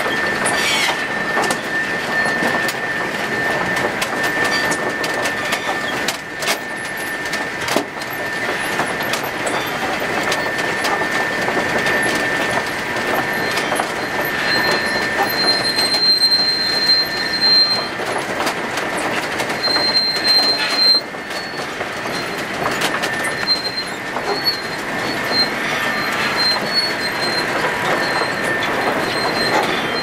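Steam-driven sawmill drive machinery running: belts, pulleys, chains and gearing clattering, with many sharp knocks, a steady high-pitched squeal throughout, and a higher whine that comes and goes from about halfway.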